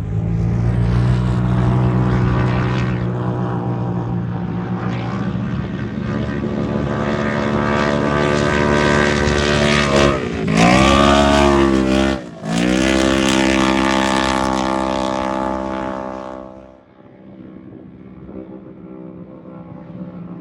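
Turbocharged UTV race engine running hard at high revs. Its pitch dips sharply twice near the middle as the throttle is lifted and reapplied, with a brief cut in between, and the engine fades out a few seconds before the end.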